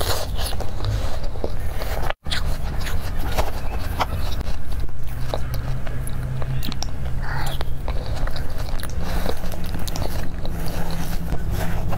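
Close-up eating sounds of soft mousse cake: wet biting and chewing, with short clicks of a fork and knife against the cake and plate. A steady low hum lies underneath, and the sound cuts out for a moment about two seconds in.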